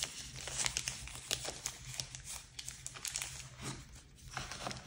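White tissue paper wrapped around a mobile phone crinkling and rustling as it is handled, with irregular crackles throughout that ease off briefly about four seconds in.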